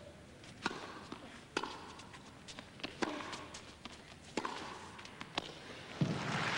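Tennis rally: racket strikes on the ball come about once a second, five in all, with fainter ball bounces between them. Near the end a final hit ends the point and crowd applause rises.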